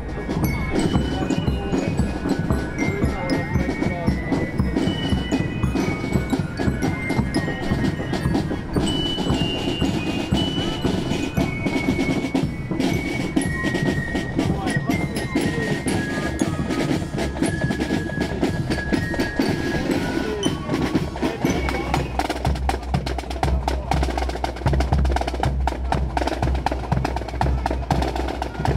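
Marching band's drum section playing snare and tenor drums, with a marching lyre (glockenspiel) ringing out a melody over the drumming. After about twenty seconds the bell tune stops and the drums, with a heavier bass drum, carry on.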